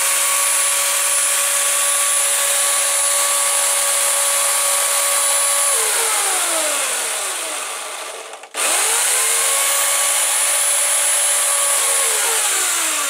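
Homelite electric chainsaw running at full speed with a steady whine. About six seconds in the trigger is let go and the motor winds down in pitch, then it is squeezed again and spins quickly back up to the same steady whine, beginning to wind down once more near the end.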